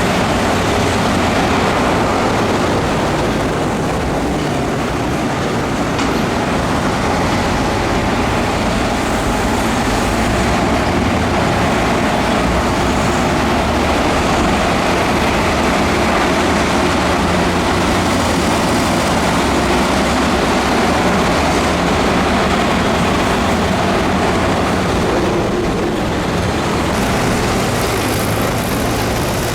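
Heavy diesel earthmoving machinery running steadily under load, a low engine rumble under a dense mechanical din.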